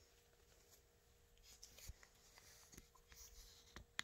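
Faint rustling and a few soft ticks of a damp paper towel being handled and folded, the loudest tick near the end.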